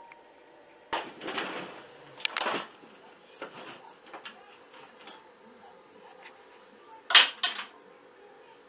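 Several knocks and rattles of objects being handled, the loudest a quick double knock near the end, over a faint steady hum.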